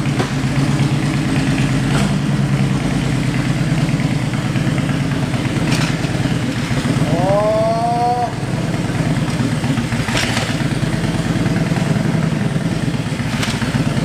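Harley-Davidson Ultra Classic's V-twin engine idling with a steady, pulsing rumble. A short rising squeal sounds about seven seconds in.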